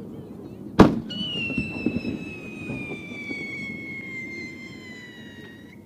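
A firework mortar fires with a sharp bang about a second in, then the No. 5 shell's whistle sounds as it climbs: one long clear whistle sliding slowly down in pitch, cut off at the very end by the loud bang of the shell bursting.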